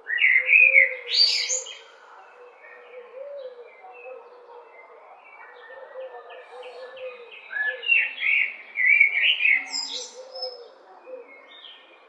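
Common blackbird singing: two loud fluting phrases, one at the start and one about eight seconds in, each ending in a high squeaky twitter, with quieter warbling between them.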